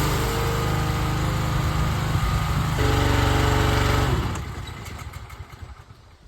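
Small gas engine of a pressure washer running steadily with a high hiss over it, then dying away about four seconds in.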